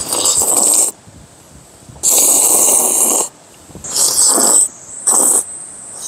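A man slurping knife-cut noodles (jang-kalguksu) from a pot in four loud slurps. The second slurp, about two seconds in, is the longest at over a second; the last is short.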